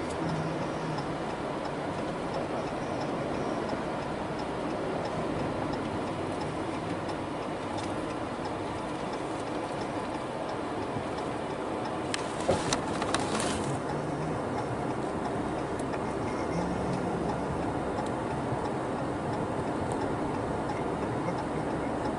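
Inside a car, a steady engine and road noise runs under a turn signal ticking at an even pace. A few sharp clicks or knocks come about twelve to thirteen seconds in.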